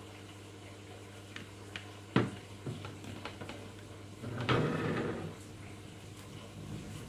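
Plastic lid of a Philips Avent SCF870 steamer-blender jar clicked shut, one sharp click and a few lighter ones, then the plastic jar clattering and scraping as it is set back onto the base unit about four seconds in.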